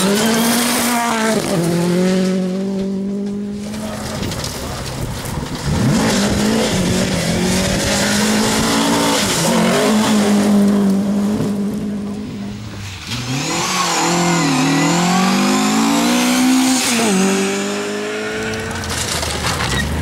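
Several rally cars one after another on a gravel stage, engines revving hard and dropping between gear changes as they slide through corners, with gravel spraying. The sound changes abruptly about six and about thirteen seconds in as one car gives way to the next.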